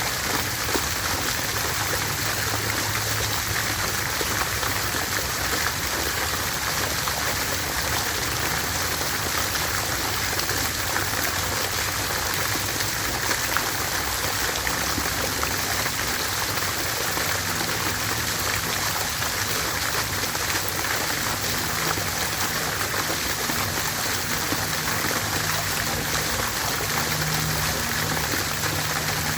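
Water fountain splashing steadily, an even, unbroken rush of falling water.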